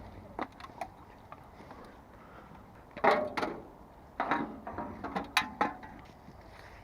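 Scrap metal clanking and rattling as magnet-fishing finds are handled, in two short bursts of sharp knocks, about three seconds in and again about a second later.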